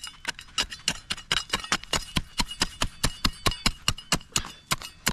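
A small hand tool striking again and again into hard soil and grass roots, digging out a shallow fire pit, in quick even strokes of about five or six a second.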